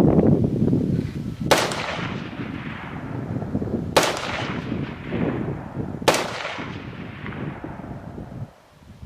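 Three AR-15 rifle shots, about two to two and a half seconds apart, each a sharp crack followed by a long echoing tail. Wind noise on the microphone fades out in the first second.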